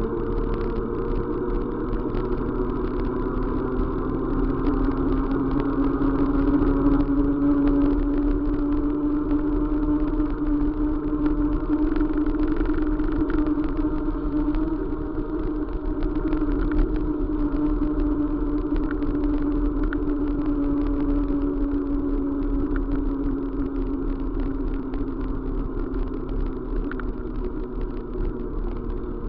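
A vehicle in motion, running steadily: a strong hum that rises slowly for the first half and then eases back down, with a fast patter of small clicks.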